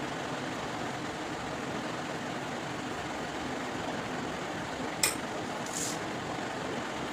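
Steady even hiss of kitchen background noise, with a sharp click about five seconds in and a short scrape just after.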